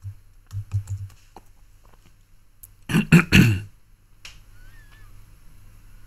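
A man close to a microphone makes a short low vocal sound, something like a throat clear, mixed with several sharp snap-like clicks about three seconds in. A couple of softer low sounds and clicks come about half a second to a second in.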